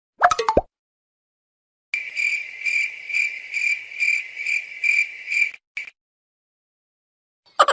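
A brief pitched blip, then field crickets chirping, a high steady trill pulsing about twice a second for nearly four seconds. This is the stock comedy cue for an awkward silence.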